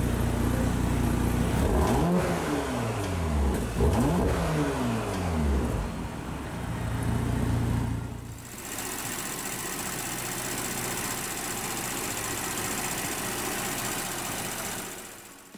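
Porsche Macan S twin-turbo V6 idling, heard at the exhaust tips, and blipped twice, about two and four seconds in; each rev climbs quickly and falls back to idle. From about eight seconds in it gives way to a steadier, quieter running sound with a hiss, with the engine heard from under the bonnet.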